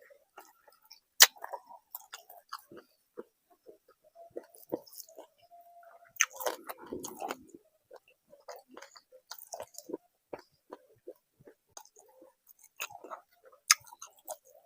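Close-miked chewing and eating of a rice-and-curry meal: irregular short wet mouth clicks and smacks, with a sharp louder click about a second in and a denser stretch of chewing and crunching around the middle.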